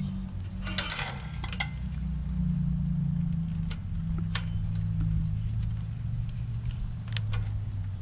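Metal clinks of a roller chain being handled, a few sharp separate clicks over a steady low hum.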